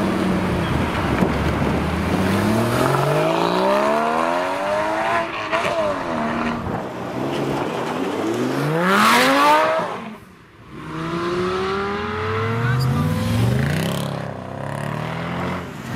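Porsche Cayman GT4's flat-six engine accelerating hard through the gears, its pitch rising and dropping back at each upshift. After a brief drop about ten seconds in, a Mercedes SL's engine accelerates away in the same rising pattern.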